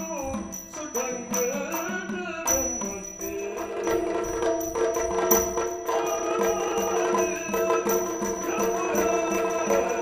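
Yakshagana puppet-theatre accompaniment music: a singer's voice over a steady run of hand-drum strokes. About two and a half seconds in, the wavering sung line gives way to steady held tones under the continuing drumming.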